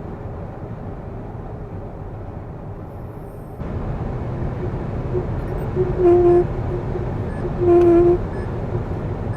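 Wind and road noise inside the cabin of a Li Auto L7 at about 140 km/h, with a steady droning hum that swells up twice in the second half. The hum is the wind-induced resonance that appears at high speed, felt resonating into the door pillar.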